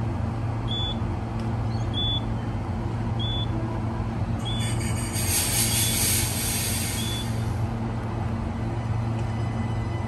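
Cabin sound inside a Queensland Rail suburban electric train: a steady low hum, with a short high beep repeating about every second and a bit, six times, and a burst of air hiss near the middle.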